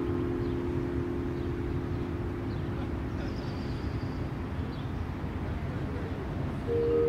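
Wind rumbling on the microphone. Sustained chime-like musical tones fade away over the first few seconds, and new chime tones come in near the end.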